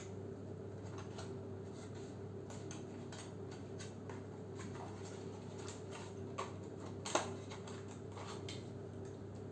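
Scattered light clicks and taps of hands handling boxed computer parts and their packaging, with one sharper click about seven seconds in, over a steady low hum.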